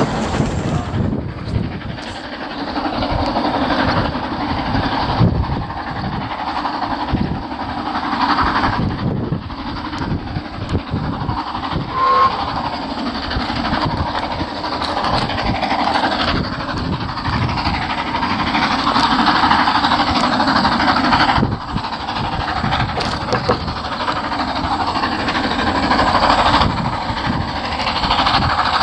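Narrow-gauge Andrew Barclay steam locomotive running along the line: a steady mix of quick exhaust beats and wheel-on-rail noise.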